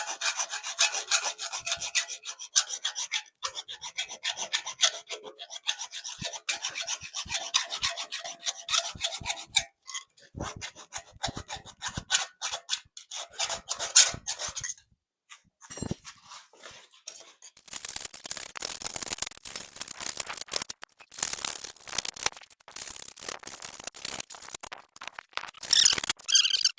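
Hand filing or rasping on the steel pipe of a flagpole, rapid scraping strokes that break off into scattered strokes about ten seconds in. Harsher, denser scraping takes over in the last third, typical of smoothing the edge of a freshly cut hole.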